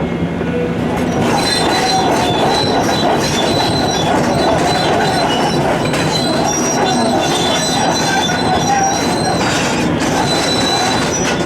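Heavy quarry excavator working, its diesel engine running loud and steady, with high-pitched metallic squealing from about a second in until just before the end.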